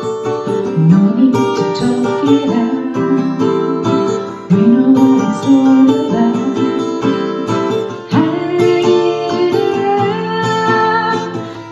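Music led by a plucked acoustic guitar, playing a continuous run of notes.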